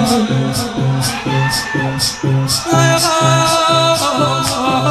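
Shia latmiya mourning chant: a steady beat of low thuds alternating with sharp slaps, about two of each a second, under a held sung voice.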